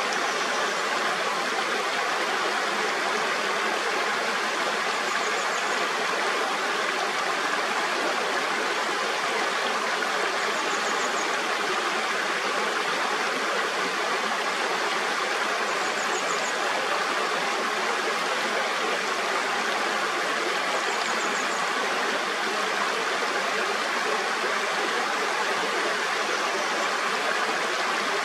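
Mountain stream flowing: a steady, even wash of water noise. A faint, high, short trilled call comes through about every five seconds.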